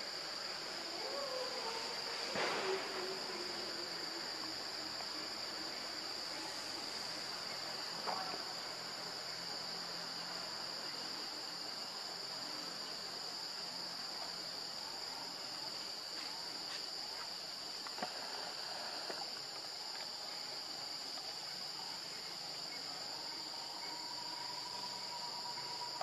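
Steady high-pitched insect chorus in the forest undergrowth, two unbroken buzzing tones held throughout, with a few soft clicks or rustles.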